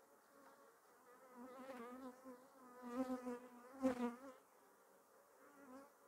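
Honeybees buzzing in flight close by as a frame is lifted out of an open hive, the hum wavering in pitch and swelling as individual bees pass, loudest around three and four seconds in, then fading.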